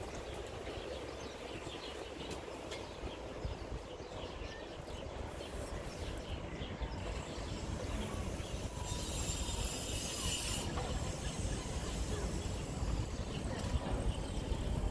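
Outdoor city ambience heard from high above the streets: a steady low rumble of wind on the microphone and distant traffic, with a short hiss about nine seconds in.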